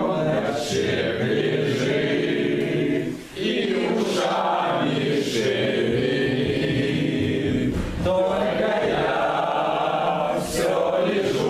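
A group of people chanting long, sustained vowel tones together as a voice-training exercise, with short breaks for breath about three seconds in and again about eight seconds in.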